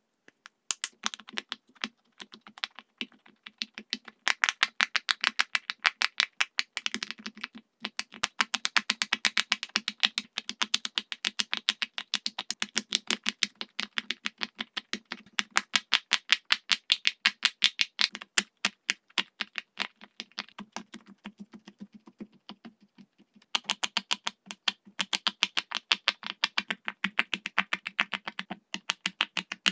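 Silicone pop-it fidget toy bubbles pressed in quick succession: a rapid run of small popping clicks, several a second, with a short break about seven seconds in.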